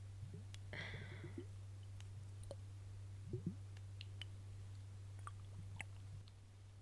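Scattered soft mouth clicks and wet lip sounds, ASMR kisses close to the microphone, with a steady low hum underneath.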